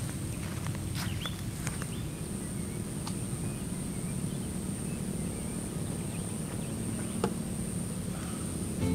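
Open-air countryside ambience: a steady low rumble with a constant high-pitched insect drone over it, and a few faint bird chirps.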